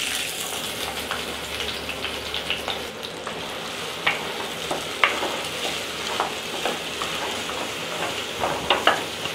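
Chopped shallots sizzling in hot oil in a clay pot, just added and being stirred with a wooden spatula that scrapes and knocks against the pot's sides every second or two.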